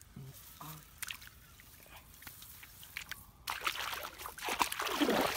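Shallow, muddy rice-paddy water sloshing and splashing around wading legs and hands, quieter at first with scattered drips and small splashes, then louder and busier from about three and a half seconds in.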